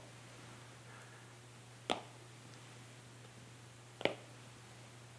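Two short sharp taps about two seconds apart: Apple Pencil tips striking iPad glass screens as strokes begin, over a faint steady low hum.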